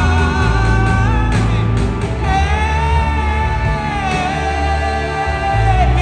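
Live gospel band playing: a singer holds one long note through most of the stretch over electric guitars, bass, keyboard and drums.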